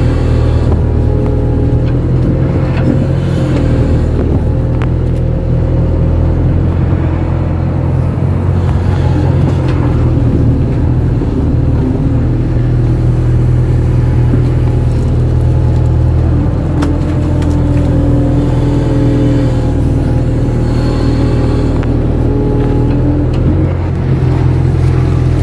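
Kato excavator's diesel engine running steadily at working speed while the arm and bucket press into wet mud.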